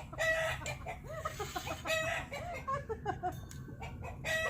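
Chickens clucking, with a rooster calling to a hen. Three louder, drawn-out calls come about two seconds apart, with quick short clucks between them.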